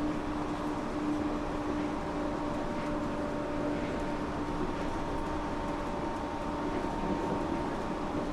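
Steady running noise inside a Yurikamome rubber-tyred automated transit car travelling along its guideway, with a steady low hum running under it.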